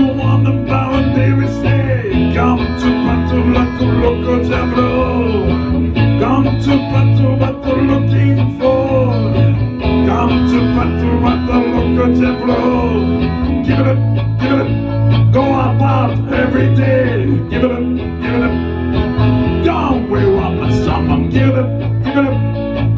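Guitar music: a plucked guitar melody with bending notes over a low bass line that changes note every few seconds.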